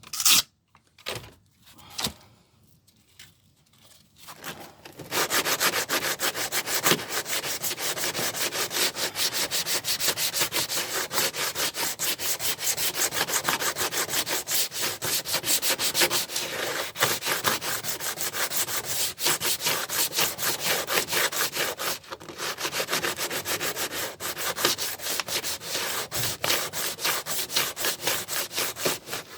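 Sandpaper sanding the repaired dent area on a van's steel sill in rapid, even back-and-forth strokes. It starts about five seconds in, after a few light knocks.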